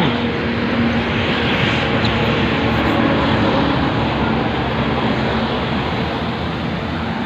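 Road traffic noise: motor vehicle engines running on a busy road, with a steady engine hum for the first few seconds.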